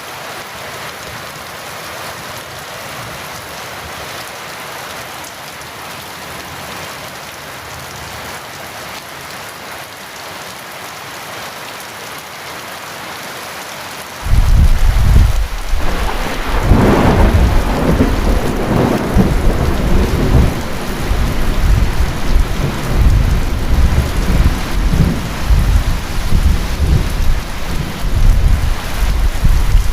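Steady heavy rain, with thunder breaking in suddenly about halfway through and rumbling on, loudest a couple of seconds after it begins.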